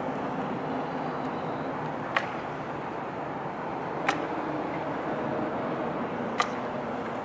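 Steady outdoor harbour ambience, a low rumble of distant engines and traffic, with three sharp clicks about two seconds apart.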